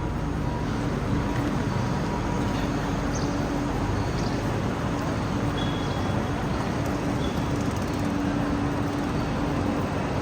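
Steady ambience of a busy railway station: a constant rumble of trains and machinery with background voices.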